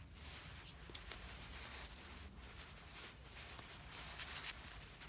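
Mitchell Mag Pro R 1000 spinning reel being turned by hand: a faint, soft whirring hiss that swells and fades several times, with a light click about a second in.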